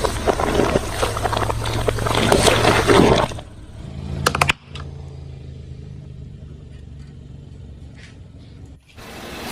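Car engine running with a steady low hum while a tyre rolls over and crushes objects, giving dense crackling and crunching for the first three seconds or so. After that the crunching stops, a few sharp snaps follow, and only the engine's hum remains.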